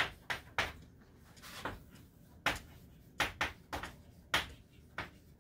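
Chalk striking and writing on a blackboard: a run of sharp, irregular clicks, about a dozen spread over five seconds.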